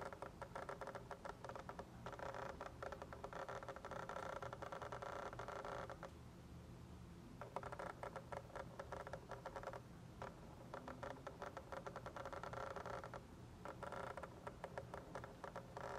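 Sigma 18-35mm f/1.8 lens autofocus motor whirring and chattering as it refocuses, picked up through the Canon SL2's built-in microphone. It comes in several bursts of a few seconds each, with short quieter pauses between them.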